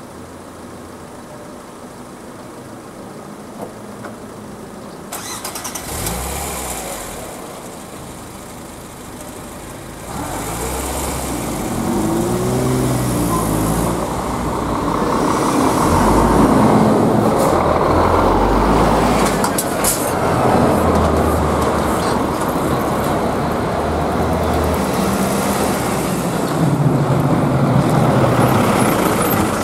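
Road traffic moving off over a reopened level crossing: car engines pulling away and passing, louder from about ten seconds in, with a lorry coming through near the end.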